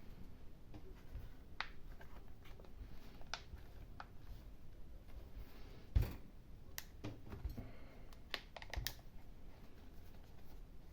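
Scattered light clicks and taps of small hard objects being handled, with one sharper knock about six seconds in and a quick cluster of clicks between about seven and nine seconds.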